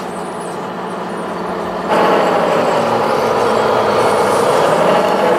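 Radio-controlled tipper truck driving, a steady engine-like running sound that gets markedly louder about two seconds in and then holds.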